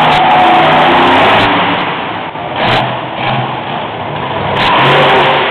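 Monster truck engine revving hard as the truck drives. It eases off a couple of seconds in and climbs again near the end.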